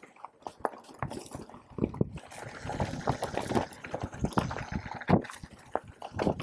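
Full-suspension mountain bike rattling and clattering over rough ground, with many irregular small knocks and clicks.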